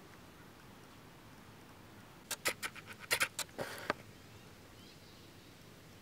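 A foal lying on bare dirt makes a quick run of about ten short, rough noises over a second and a half, about halfway through.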